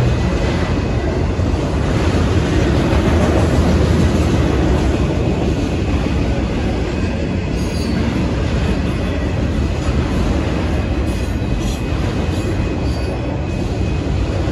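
Union Pacific autorack freight cars rolling past at a grade crossing: a steady rumble of wheels on the rails, with a faint, steady high squeal from the wheels.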